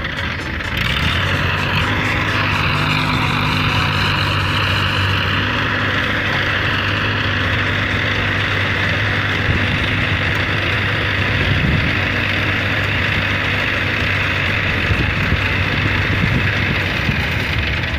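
Heavy construction machine's diesel engine running steadily, with a higher whine over it whose pitch dips and rises a second or two in, then holds steady.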